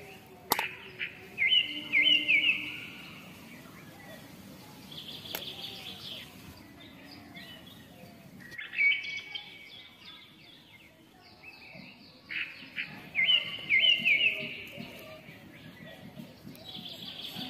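Small birds chirping in short, quick phrases that come back every three to four seconds, over a faint steady background.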